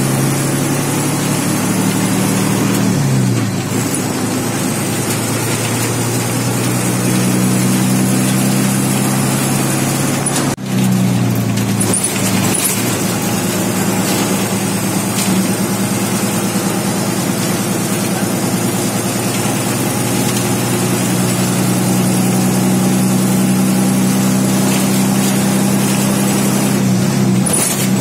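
Diesel engine of an MSRTC bus heard from inside the cabin while driving. The engine note drops about three seconds in, again around eleven seconds, and near the end, each time climbing back as the bus pulls on. A faint high whine sits above.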